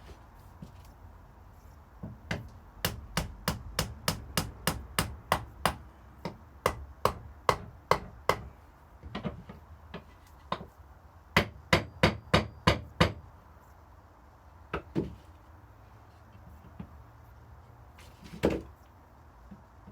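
Hammer tapping on wood in quick runs of light, sharp taps, about three a second, with pauses between the runs and one last single knock near the end.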